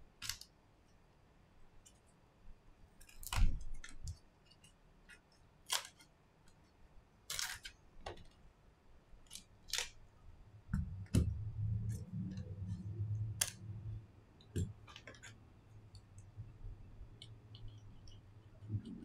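An iPhone XS being handled and opened on a silicone repair mat: scattered sharp clicks and taps of the phone and a plastic opening pick, with a low rubbing rumble of handling in the second half.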